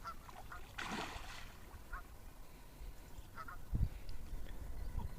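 Geese honking, short calls repeated several times, with a brief rushing noise about a second in and a low thump just before four seconds in.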